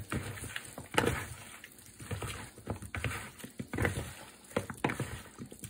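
Raw chicken wings slick with olive oil and seasoning being squished and turned by a gloved hand in a plastic bowl. The sound is an irregular run of wet squelches with a few sharper clicks.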